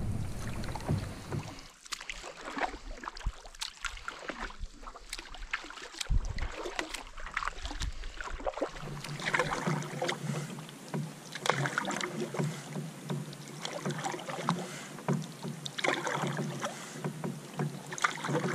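Canoe paddling on calm water: a wooden paddle stroking and dripping, with scattered light knocks. From about nine seconds in, the strokes come about every two seconds, each a brief water swish.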